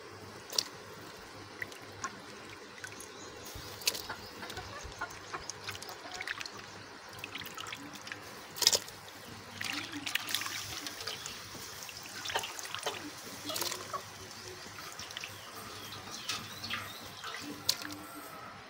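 Water boiling in a large aluminium pot, with irregular splashes and plops as chunks of mutton are dropped into it.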